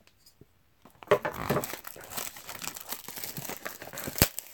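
Plastic shrink-wrap being crinkled and torn off a sealed trading-card box: a run of crackles and small rips that starts about a second in.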